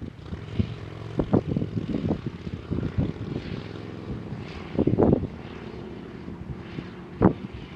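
Wind gusts buffeting the microphone in irregular low rumbling blasts, loudest about five seconds in and again near the end, over a faint steady drone.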